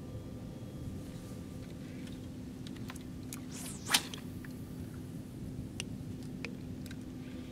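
A spinning rod cast: a quick swish of the rod through the air about halfway through, ending in a sharp snap, the loudest sound here. A few light clicks follow, over a steady low hum.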